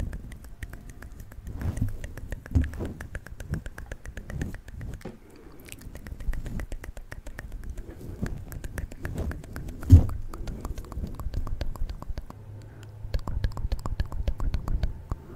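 Close-miked wet mouth sounds: rapid clicks and smacks of lips and tongue, over soft low thuds, with one sharp low thump about ten seconds in.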